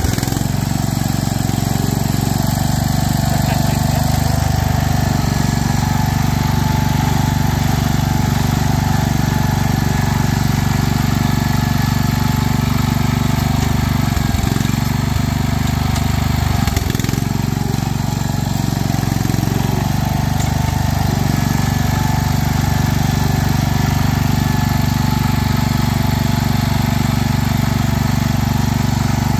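Wheel Horse garden tractor engine running steadily under load as the tractor churns through mud, with a couple of brief knocks about 14 and 17 seconds in.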